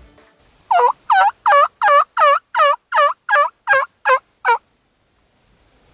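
Mouth call blown close by in a string of eleven evenly spaced, loud yelps, about two and a half a second, like a turkey hen yelping.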